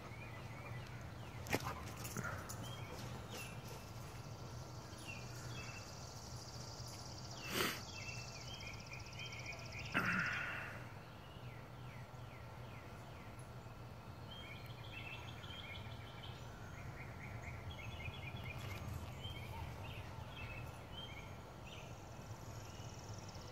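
Backyard ambience: birds chirping again and again over a steady low hum. A few brief louder sounds stand out, one just under two seconds in and two more around eight and ten seconds in.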